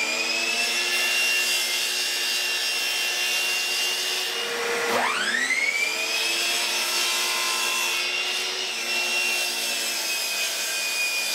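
A Hitachi sliding compound miter saw runs at full speed with a steady high whine while it trims a blade's width off glued-up wooden boards. About five seconds in, the motor drops off and is triggered again, rising quickly back up to speed for the next cut.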